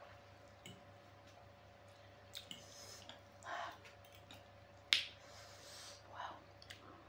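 Close-miked eating sounds: a person slurping and chewing instant noodles, with small wet mouth clicks and a few short slurps. One sharp click just before the 5-second mark is the loudest sound.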